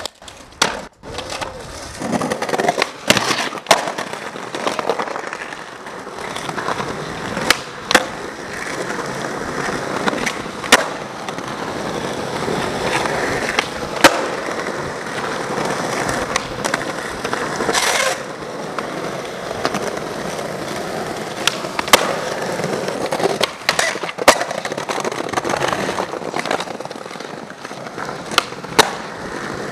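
Skateboard wheels rolling over pavement, broken by about a dozen sharp clacks of tails popping and boards landing, with grinding on ledges.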